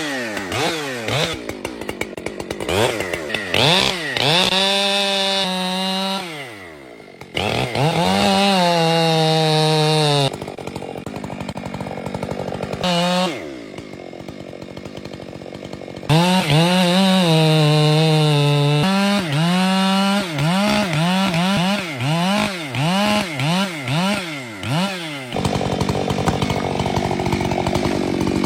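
Two-stroke chainsaw engine revving repeatedly, its pitch rising and falling with the throttle. It is held at high revs for a few seconds at a time, then drops back to lower revs.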